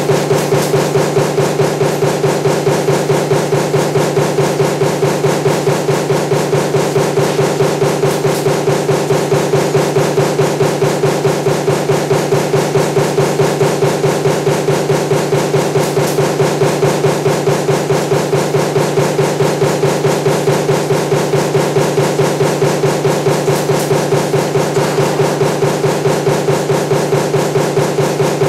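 Power press running a stamping die for table fan motor parts, punching in a fast, even rhythm of about three strokes a second over a steady machine hum.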